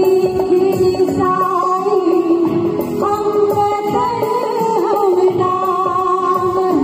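Choir of women and men singing together, accompanied by a harmonium.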